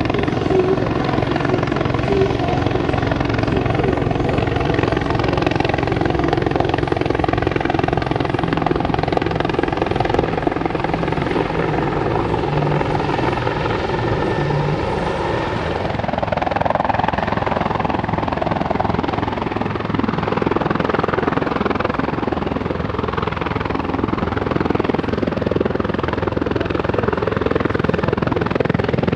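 CH-146 Griffon helicopter flying, its rotor and turbine noise steady and loud. A set of steady tones over the rushing rotor noise fades out about halfway through, leaving mostly the rushing noise.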